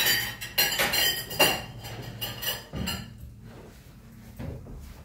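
Knives and forks clinking and scraping on china plates, busy and loud for about the first three seconds, then quieter. A couple of dull knocks follow as chairs are moved back from the table.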